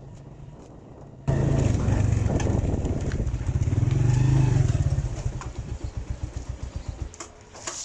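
Motorcycle engine running as the bike rides along, cutting in suddenly about a second in with a rapid pulsing beat, then fading out near the end.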